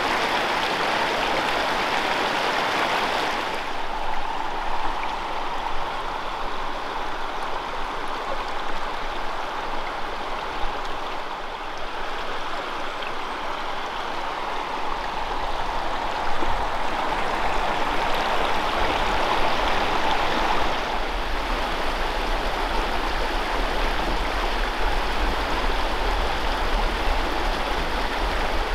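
Small freestone mountain stream running over rocks: a steady rush of water whose tone shifts a few seconds in and again about two-thirds of the way through.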